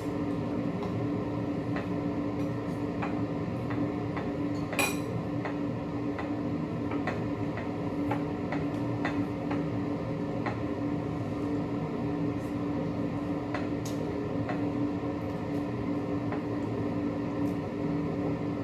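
Eating utensils clinking and scraping against plates now and then during a meal, over a steady low hum. One sharper clink comes about five seconds in.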